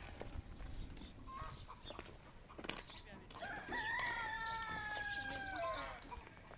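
Rooster crowing once: one long call starting about three seconds in, held for over two seconds and falling in pitch at the end.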